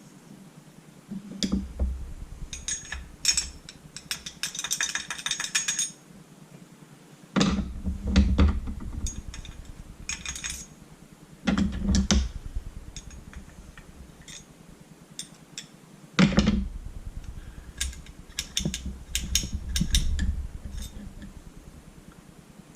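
Metal parts of a disassembled Spyder paintball marker being handled on a work surface, clinking, clicking and knocking in four bursts with short gaps between them. About five seconds in comes a quick rattle of clicks.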